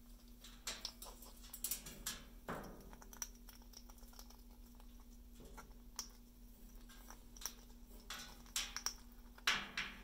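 Amazon parrot's claws and beak clicking and tapping on its cage tray as it steps along the rim and pecks at the floor: scattered sharp clicks in small clusters, the loudest near the end.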